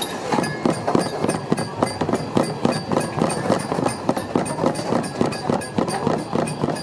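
Rapid, irregular clattering knocks, about four or five a second, with no let-up.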